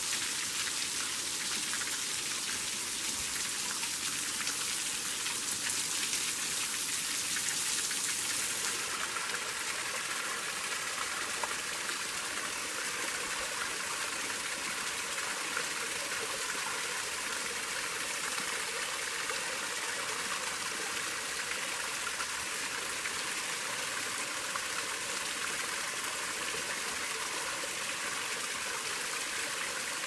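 Water falling from a rock overhang and splattering on the rock below, a steady hiss like heavy rain. About nine seconds in it changes to the steady rush of a small waterfall spilling over a rock ledge into a creek.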